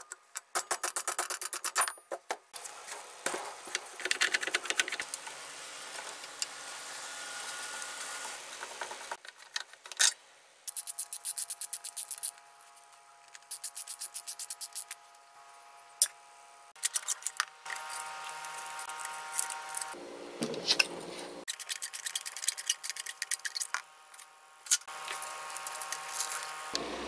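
Sped-up, time-lapse sounds of hand tools taking apart the metal motor housing of a Hitachi GA21 groove cutter: rapid clicking, rattling and knocking of a screwdriver and small metal parts, with several stretches of a steady buzzing tone.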